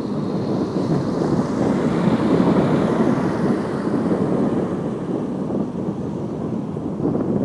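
Wind buffeting the microphone of a bicycle-mounted camera while riding, with a car overtaking and pulling away ahead about two seconds in.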